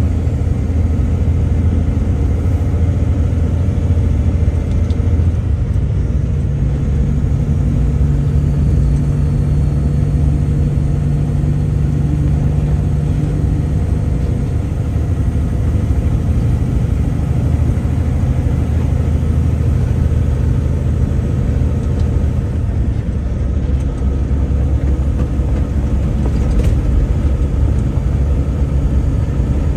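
Freight truck's engine and road noise heard from inside the cab, a steady low drone. The engine note steps up about seven seconds in and drops back about fourteen seconds in.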